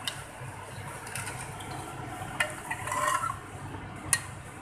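Metal ladle stirring thick curry gravy in a metal pot, with a few sharp clinks of the ladle against the pot and a wet stirring noise about three seconds in.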